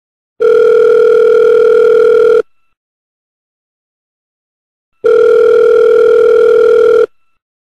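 Telephone ringback tone: two long, steady electronic rings of about two seconds each, separated by a pause, the sound a caller hears while the line rings at the other end.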